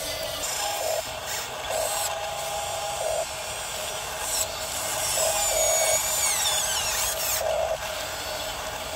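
Small electric drive motors and gearboxes of a toy RC bulldozer and excavator whining as they work, starting and stopping in short runs, with a high whine falling in pitch about two-thirds of the way through. Gravel scrapes under the bulldozer blade.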